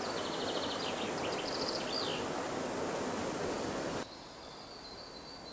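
Outdoor nature ambience: a steady rushing noise with a bird's rapid high chirps and a falling call in the first two seconds. About four seconds in it cuts suddenly to a quieter background with a thin high steady tone.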